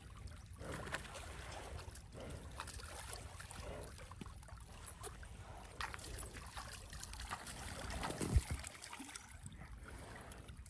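Shallow pond water splashing and trickling as a hand scoops and splashes it around a wallowing water buffalo's muzzle, with scattered small splashes. A brief low thump comes about eight seconds in.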